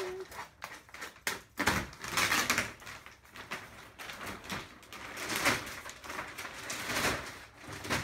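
Clear plastic wrapping being pulled off a packaged appliance, rustling and crinkling in a few rough bursts, the strongest about two seconds in, another near five and a half seconds and one near seven.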